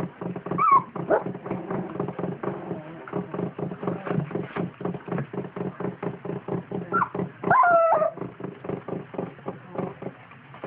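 Two-week-old standard poodle puppies whimpering: a few short, high squeaky whines, the loudest cluster about three quarters of the way through. Beneath them runs a steady low hum with a fast, even ticking.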